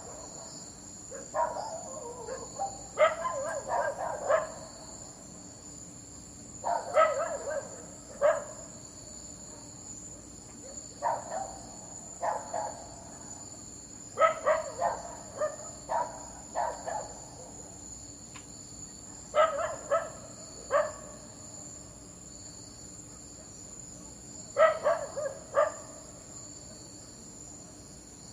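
A dog barking in short bouts of a few barks each, about six bouts with pauses of a few seconds between them. Crickets chirr steadily behind it throughout.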